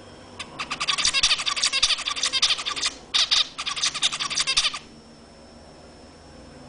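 Zebra finch singing: a fast run of rapid, dense notes lasting about four seconds, with a brief break partway through, then stopping.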